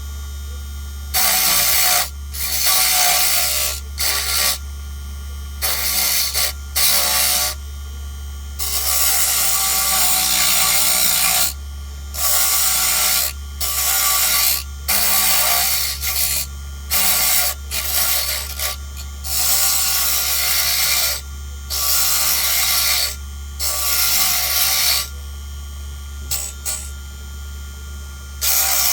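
Small wood lathe running with a steady motor hum while a turning tool cuts the spinning wooden lure blank in repeated loud scraping passes, each lasting from half a second to a few seconds.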